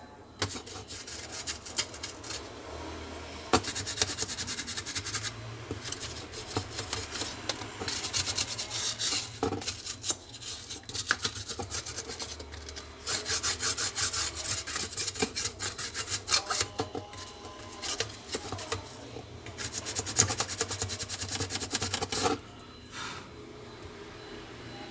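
Rapid scrubbing strokes on a laptop mainboard, cleaning off corrosion. The strokes come in runs of several seconds with short pauses, and stop about 22 seconds in.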